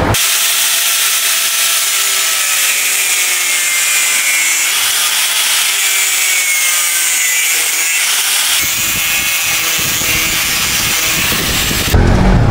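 Handheld angle grinder cutting metal: a steady, loud hissing grind with a faint wavering whine. Just before the end it gives way to a motorcycle running.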